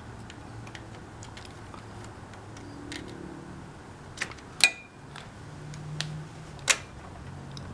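Scattered sharp clicks and taps of a hand tool and small metal cable fittings as a motorcycle clutch cable is worked into place at the engine, one louder metallic click about halfway through ringing briefly.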